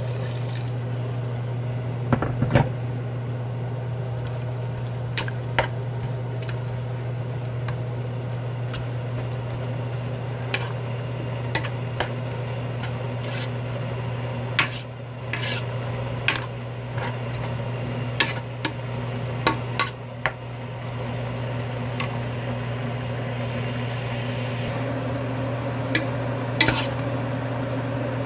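A metal utensil clicking and knocking irregularly against a cooking pot as seaweed is stirred, over a steady low hum.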